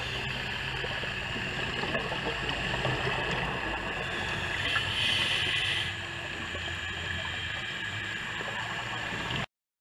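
Underwater ambience picked up through a camera housing: a steady hiss with crackle, and a louder rush of a scuba diver's exhaled regulator bubbles about five seconds in. The sound cuts off suddenly near the end.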